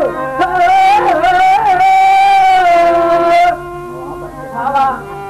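A man singing a verse of a Telugu stage drama, drawing out one long, slightly wavering note with pitched accompaniment beneath. The voice stops about three and a half seconds in, leaving the quieter accompaniment.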